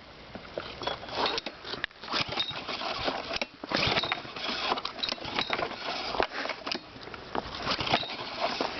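Recoil pull-starter on a cold 5 hp Honda engine being yanked repeatedly, the engine turning over in uneven rattling spurts without catching: a cold start that fails.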